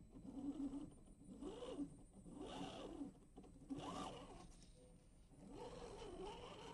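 Electric motor and gear drive of a Boomracing Defender 110 RC crawler whining, rising and falling in pitch several times as it works over tree roots under changing throttle.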